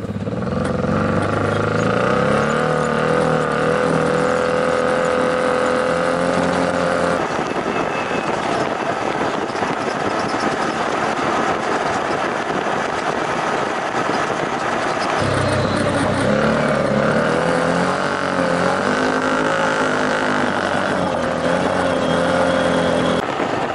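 Side-by-side off-road vehicle running along a dirt trail, its engine note wavering and shifting with the throttle over steady wind and trail noise.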